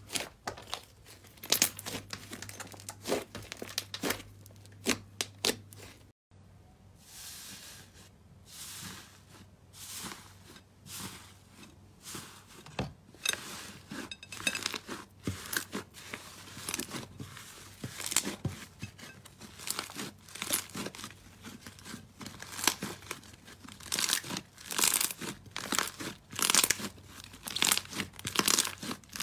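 Hands kneading, squeezing and pressing slime, giving a run of irregular sticky crackles, tearing sounds and small air pops. There is a short break about six seconds in before the crackling resumes.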